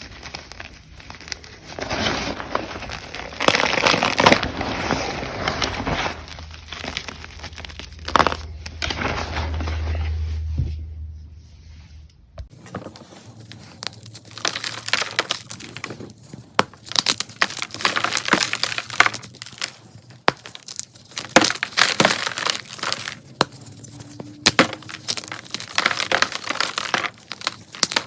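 Crunchy gym chalk being crushed and crumbled: dense, irregular crunching and crackling, turning into crisper, sharper snaps about halfway through.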